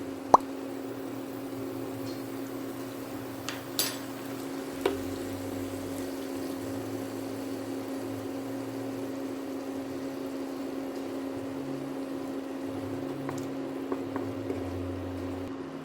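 A kitchen appliance running with a steady, even hum. A few sharp clicks or knocks come near the start and again around four and five seconds in.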